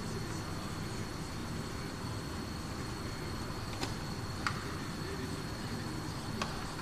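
Steady workshop hum with a constant high-pitched whine, and a few sharp clicks from the plastic tail-light unit as its wiring connector is unplugged and the lamp is handled: twice around four seconds in and once near the end.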